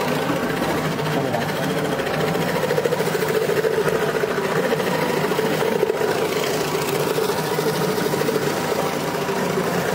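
Motor-driven potato-chip slicer machine running and cutting whole potatoes fed into its hopper, with a steady, fast rattling whir as the slices are thrown out.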